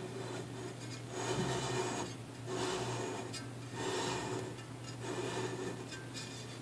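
Glass jam jar being twisted on a tabletop, its base scraping the surface in about four strokes, over a steady low hum.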